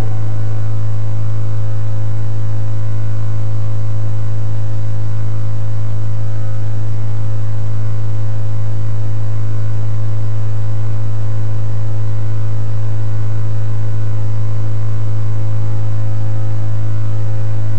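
Loud, steady electrical mains hum, with fainter steady tones above it; it does not change throughout.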